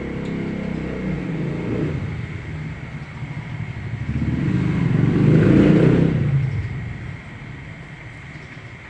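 A motor vehicle's engine running, growing louder to a peak a little past the middle and then fading away.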